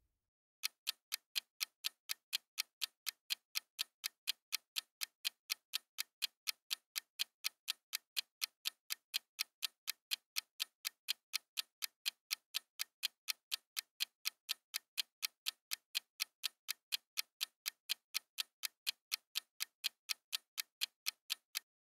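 Clock-ticking sound effect for a countdown timer: even, sharp ticks at about three a second, starting just under a second in.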